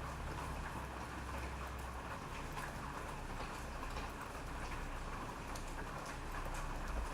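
Steady rain, with many separate drops ticking on a surface over a low rumble.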